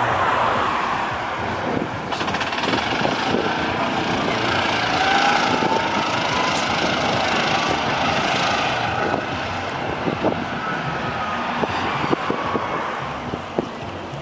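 Street traffic: a vehicle driving past, its engine note rising through the middle, over a steady rushing noise.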